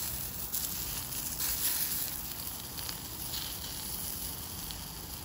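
Sausages sizzling in oil in a frying pan over a portable gas stove, a steady hiss with a few faint pops.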